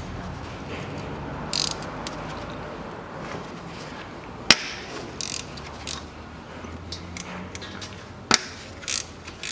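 Hand ratchet with a 12 mm socket clicking as the air-conditioning compressor's mounting bolts are undone, with scattered sharp metallic clicks, two louder ones about four and a half and eight seconds in.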